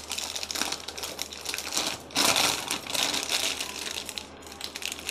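Thin plastic bag full of batter crinkling and rustling in irregular crackles as it is lifted out of a steel bowl and its top is gathered by hand. The crackling is loudest a little over two seconds in.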